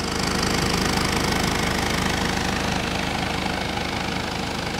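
2014 Jeep Cherokee Trailhawk's engine running steadily, heard from beneath the vehicle by the exhaust muffler.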